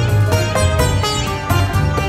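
Background music: quick plucked-string notes over a steady low bass.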